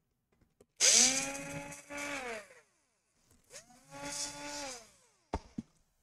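Electric screwdriver running twice, about a second and a half each time, its motor whine rising as it spins up and falling as it stops, backing out laptop battery screws. A sharp click follows near the end.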